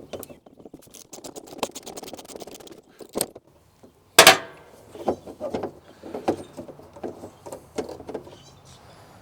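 Hand tools working metal inside a truck door: a wrench undoing the 10 mm bolt that holds the exterior door handle, with a run of small clicks and a sharp metal clank about four seconds in, then scattered light knocks.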